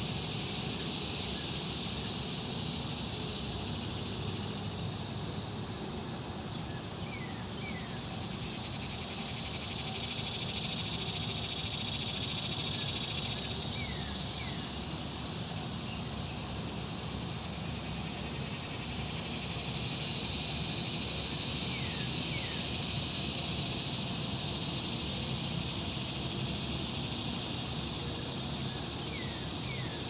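Insect chorus, a high hiss that swells and fades in slow waves about every ten seconds, over a steady low rush. A bird calls two short falling notes about every seven seconds.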